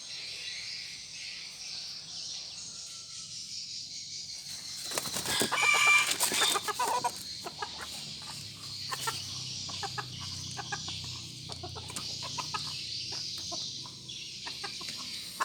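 Red junglefowl calling: a loud harsh squawk with wing flapping about five seconds in, then short clucks scattered through the rest. The bird is in the early stage of 'ngorok', the snoring respiratory illness of chickens.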